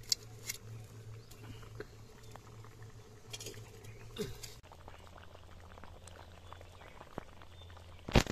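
Fish curry bubbling at a simmer in an iron kadai over a wood fire, with scattered small crackles and taps. A loud knock comes near the end.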